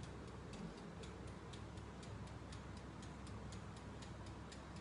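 Mechanical wind-up timer of a countertop electric oven ticking evenly, about four ticks a second, as it counts down a bake.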